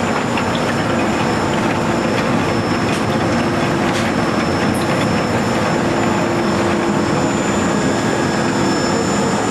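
Green-tea processing machinery running steadily: the leaf steamer and its conveyor make a loud, even mechanical noise with a steady hum and a thin high whine, and a few faint clicks.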